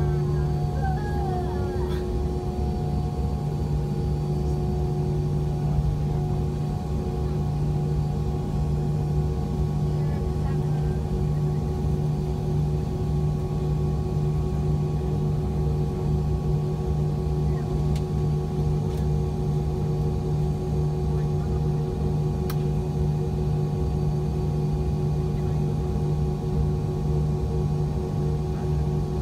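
MD-90's aft-mounted IAE V2525-D5 turbofan engines running at taxi power, heard from inside the rear cabin next to the engine: a steady drone with a deep hum and a few held higher tones.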